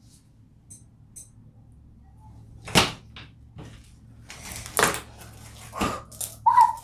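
Homemade slime studded with pumpkin seeds being stretched, squished and pressed onto a tabletop by hand. A few faint sticky clicks come first, then from about three seconds in a run of louder sharp pops and slaps.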